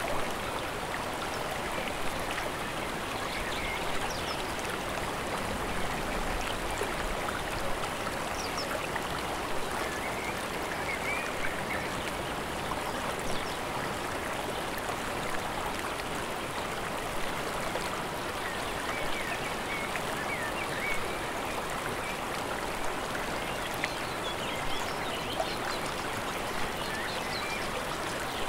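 Water of a mountain stream and waterfall rushing steadily, with small splashes now and then. Faint short bird chirps come through the rush of water here and there.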